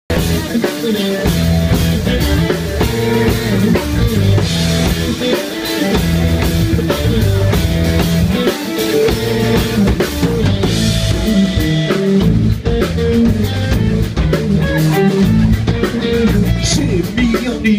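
Live jazz-funk band playing an instrumental passage: a drum kit keeping a steady beat under a moving electric bass line, with electric guitar.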